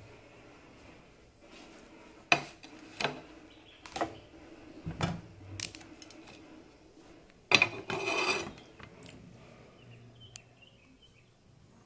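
Handling noise on a phone's microphone: a string of sharp knocks and clicks, then about a second of louder rustling, as of cloth rubbing against the phone.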